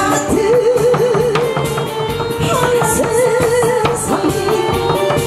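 A song with drum accompaniment: a singer holds long, strongly wavering notes over a steady drum beat.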